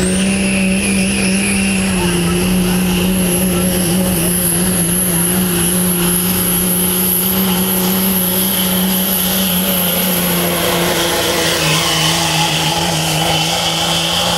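2005 Dodge Ram's 5.9-litre Cummins turbo-diesel pulling a weight-transfer sled at full throttle, held at high revs with a steady high turbo whistle. The revs sag slightly near the end as the sled's weight builds.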